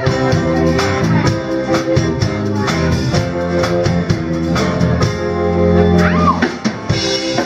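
Live band playing a song on acoustic guitar, fiddle and drum kit, with a steady beat.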